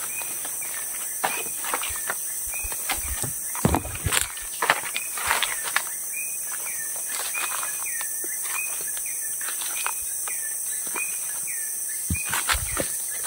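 Forest evening ambience: a steady high-pitched insect drone with a bird repeating a short hooked call about once a second, and footsteps crunching on the trail in the first half.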